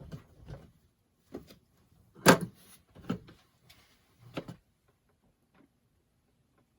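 Six or so short knocks and clatters of hard parts and tools being handled during a faucet repair, the loudest a little over two seconds in.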